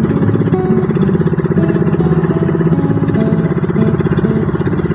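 Small engine of a motorized bamboo outrigger boat running steadily, with a fast, even pulse.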